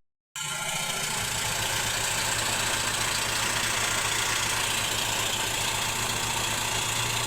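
Engine idling steadily with an even low throb, after a brief dropout at the very start.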